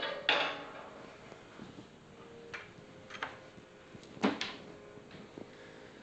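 Brewing equipment being handled: a stainless steel brew kettle set down with a clank just after the start, then a few light knocks and clicks, and a sharper double knock about four seconds in.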